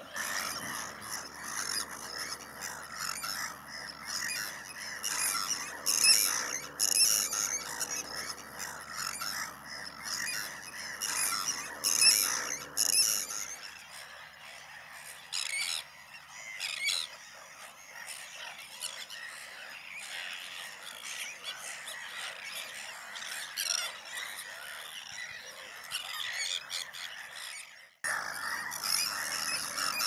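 A nesting colony of Sandwich terns and other seabirds calling, many loud calls overlapping with no pause. The sound changes abruptly about halfway through and again near the end.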